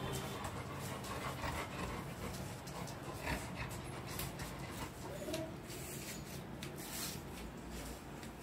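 A dog panting, with scattered light clicks and taps.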